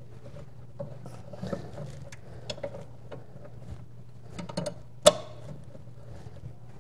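Wrench and brake line fitting clicking and tapping in irregular small knocks as the line nut behind the disc brake caliper is worked loose, with one sharper metallic clink about five seconds in. A low steady hum runs underneath.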